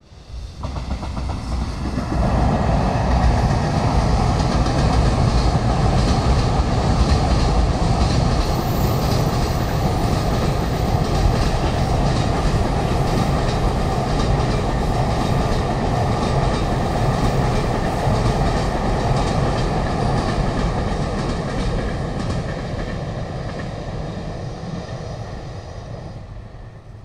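Long container freight train passing. Its rumble builds over the first two seconds, holds steady while the wagons roll by, and fades away over the last five seconds or so.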